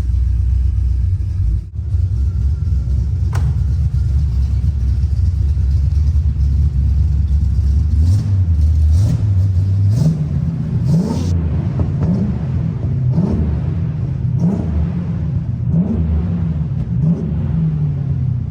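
1967 Pontiac Firebird's 400 cubic-inch V8 running with a low rumble under way. From about eight seconds in, its pitch climbs and drops again several times as it is revved.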